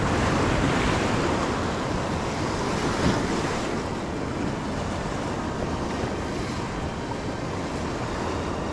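Sea waves breaking and washing over rocks at the water's edge, a continuous rushing surf. It is loudest in the first second, surges again briefly about three seconds in, then settles to a steady wash.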